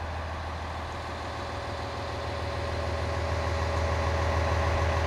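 A heavy engine running steadily at idle with a low, even hum, getting a little louder toward the end and cutting off suddenly.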